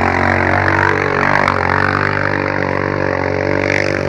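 A 500 cc ATV engine held at steady high revs, a constant drone, changing abruptly about four seconds in.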